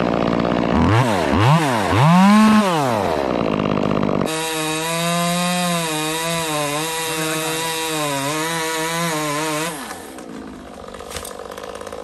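Small chainsaw cutting through a thick fir limb at the trunk. It revs up and down in about three surges, then runs under load for about five seconds with its pitch wavering, and drops away near the end. The limb is too big for this little saw.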